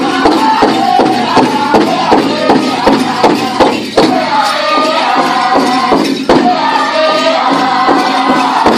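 Powwow drum group singing in high, wavering voices over a steady, fast drumbeat for men's traditional dancing.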